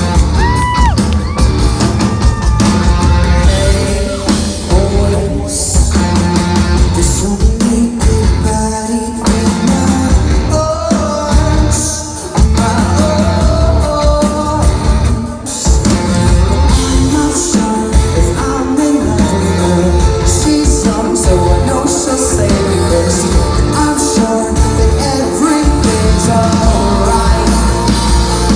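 Live rock band playing loudly with a singer's vocals over distorted guitars, bass and drums, heard in a large hall from the audience.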